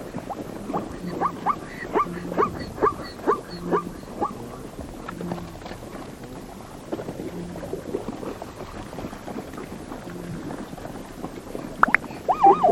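Repeated short animal calls, each rising and falling in pitch, about two a second at first and then sparser.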